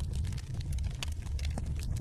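Wood fire burning in a fireplace: a steady low rumble of the flames with many small sharp crackles and pops from the burning logs.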